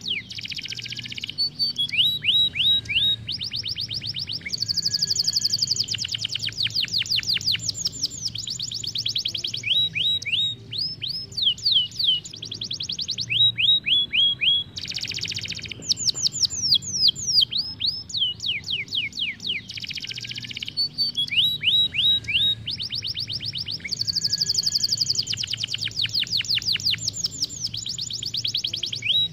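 Isabel canary singing a long, continuous song of fast rolling trills, rapid repeated notes and quick downward-sweeping whistles, switching phrase every second or two.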